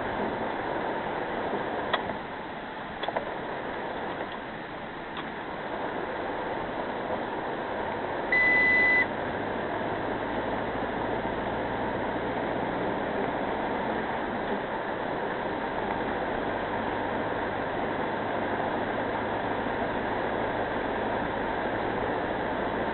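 Steady road and engine noise inside a moving car, with one short, high electronic beep about eight seconds in. A few faint clicks come in the first few seconds.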